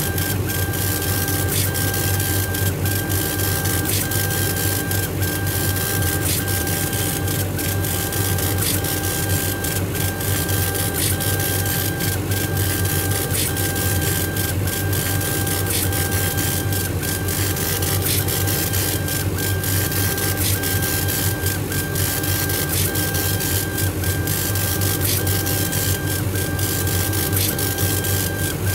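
Laser engraver running while it engraves a beech wood plate: a steady low hum with a high whine over it that breaks briefly at even spacing, somewhat under twice a second, as the head sweeps back and forth.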